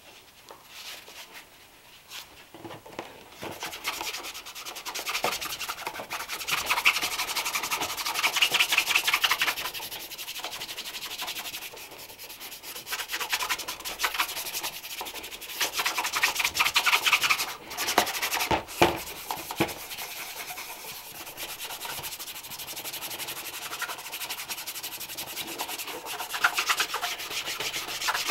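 Brisk back-and-forth rubbing strokes on a leather shoe during polishing, coming in louder spells, with a couple of sharp knocks about two-thirds of the way through.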